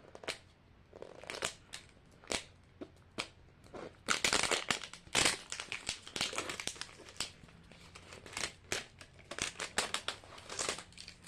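Thin plastic wrapper crinkling and crackling in irregular bursts as it is pulled and torn off a Mini Brands capsule, busiest a few seconds in.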